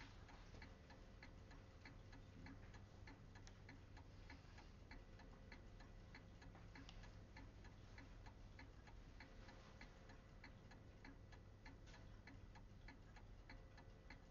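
Near silence with faint, evenly spaced ticking that keeps a steady rhythm over a low background hum.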